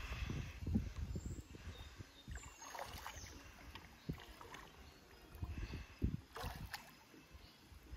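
Water sloshing and splashing in a shallow river as a person moves through it, in irregular surges with a few brief louder splashes, over a low rumble.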